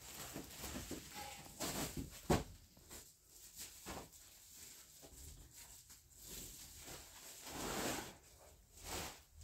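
Plastic sheet and cloth rustling in irregular bursts as they are spread and smoothed by hand on a floor mat, with one sharp knock a little over two seconds in.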